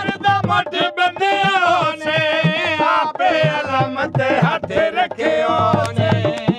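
Punjabi folk song: a singer's wavering, ornamented melody over repeated hand-drum beats.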